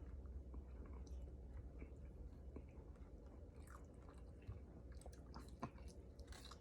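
A person chewing a birria taco close to the microphone: faint, irregular mouth clicks and smacks, with one sharper click near the end, over a steady low hum.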